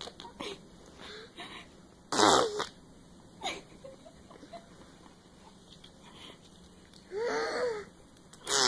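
Toddler pressing her lips against her hand and blowing to make fart noises, several short goes with pauses between. The loudest comes about two seconds in, a short sharp one about a second later, and a longer one near the end.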